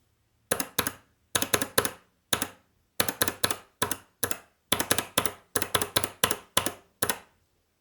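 A clicky Kailh Box Jade mechanical keyboard switch on a switch tester, pressed and released repeatedly. Each keystroke gives sharp clicks, heard in quick clusters of two or three, about a dozen clusters in all, stopping shortly before the end.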